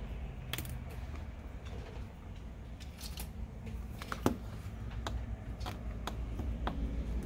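Small scattered clicks and scrapes of a hand tool worked along the edge of a phone's metal frame, scraping off old adhesive residue, with one sharper click about four seconds in. A low steady hum runs underneath.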